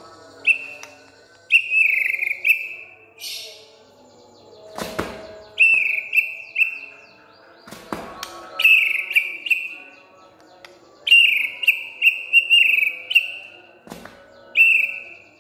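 White-rumped shama singing vigorously: bursts of loud, clear whistled notes that dip slightly in pitch, repeated every few seconds. Three dull thumps fall between phrases.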